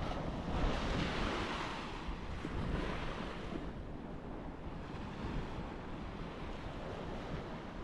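Sea surf washing in, the hiss swelling and easing in surges, with wind buffeting the microphone as a low rumble.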